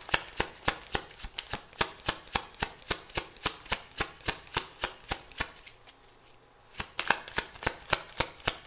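A deck of tarot cards being shuffled by hand, the cards clicking against each other about four times a second. The shuffling pauses briefly about six seconds in, then starts again.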